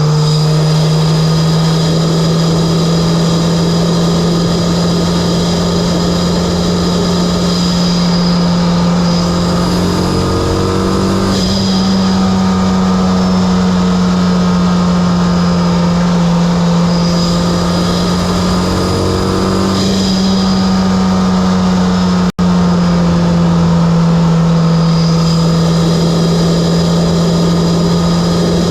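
Mitsubishi Lancer Evolution X's turbocharged four-cylinder, fitted with an aftermarket Injen intake and HKS exhaust, droning at steady revs under way. The pitch steps up slightly twice, and the sound drops out for an instant about two-thirds through.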